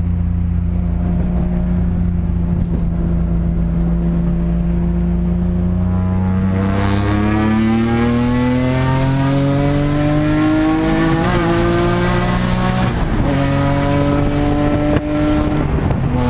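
Car engine through a Bimmerworld race exhaust, loud, first holding a steady drone, then accelerating with its pitch rising for several seconds before dropping at a gear change, and changing again a couple of seconds later.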